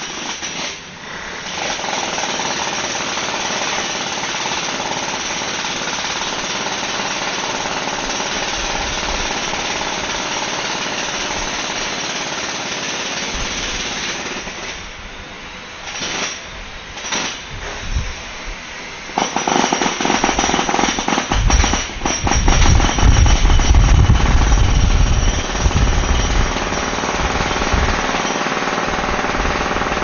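Jackhammers breaking concrete close by, a dense, continuous rapid hammering. About halfway through it eases off to a few short bursts, then comes back louder and heavier from about two-thirds of the way in.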